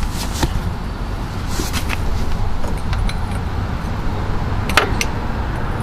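Metal hand tools clinking and knocking a few times, the sharpest knock near the end, over a steady low rumble.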